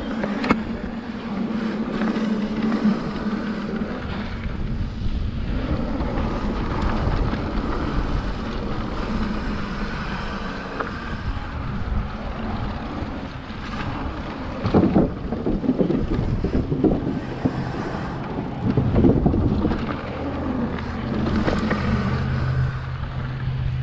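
Mountain bike riding down a dirt trail: wind rushing over the microphone, with irregular knocks and rattles from the rough ground. A low steady hum comes in near the end.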